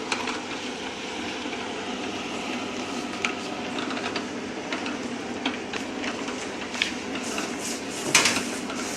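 Horizontal continuous band sealer running steadily while a plastic bag is fed through and heat-sealed, with a light clatter of scattered clicks from the belt drive and bag. A louder clack comes near the end.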